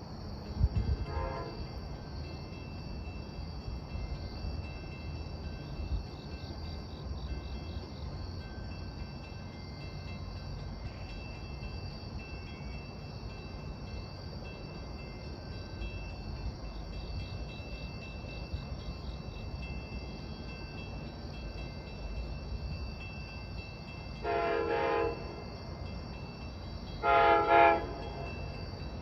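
K5LA air horn on a DM30AC locomotive sounding a short blast about a second in, then two short blasts near the end, the second louder. A low rumble runs underneath between the blasts.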